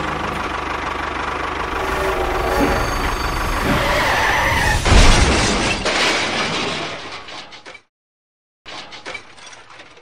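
A tractor engine sound running steadily, then a loud crash about halfway through as the model tractor collides with a toy locomotive. Afterwards the sound tails off, cuts out briefly, and returns more faintly near the end.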